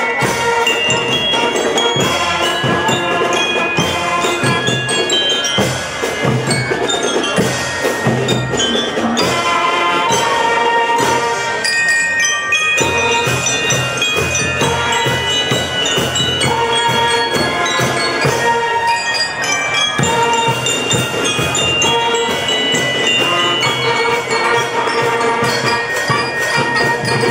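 Marching band playing: bell lyres ring out the melody over bass and snare drums, with trumpets and other brass.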